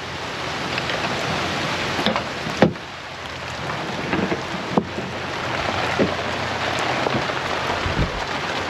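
A sudden rain shower pouring onto a wooden boat's deck and cabin, with a few sharp knocks as wooden cabin windows and a hatch are shut against it.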